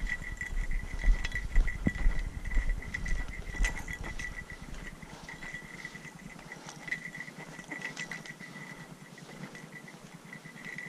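Wind buffeting the microphone with an irregular low rumble, over a steady, fast, high-pitched pulsing that runs throughout, with scattered short clicks.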